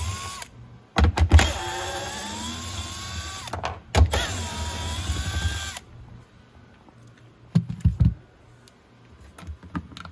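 Cordless drill-driver running in short bursts to back out the 10 mm bolts holding a dash panel. A run ends about half a second in, then two longer runs follow, each with the motor's whine sliding in pitch. A few light knocks come near the end.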